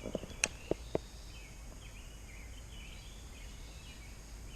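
A few light knocks in the first second, then faint bird chirping over a steady outdoor background hum.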